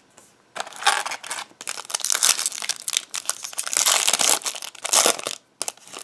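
Foil wrapper of a hockey card pack crinkling and tearing as it is ripped open by hand. The rustle starts about half a second in and runs for about five seconds, with a few last crackles near the end.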